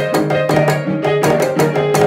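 Ragtime piano with a rope-tuned drum struck with two sticks and a metal bell struck with a stick, playing the Candomblé Ketu aguerê rhythm over it in a quick, even run of strokes.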